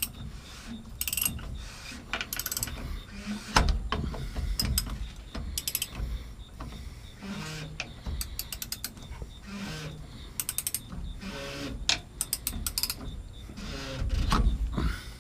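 Mechanical clicking and clatter of hand work on a diesel truck's fuel filter assembly, with several short runs of rapid ratchet-like clicks as the parts are fastened back down.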